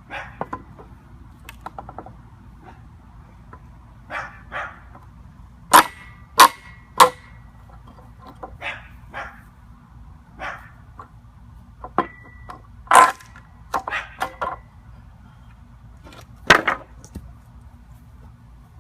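Steel pallet-wrecking bar clanking and knocking against a wooden pallet as boards are pried loose: scattered sharp knocks, some with a short metallic ring. Three loud clanks come about half a second apart a third of the way in, with more later.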